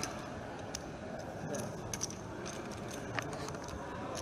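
Clay poker chips clicking together as they are handled and pushed out for a bet: a few scattered sharp clicks over a low, steady room hum.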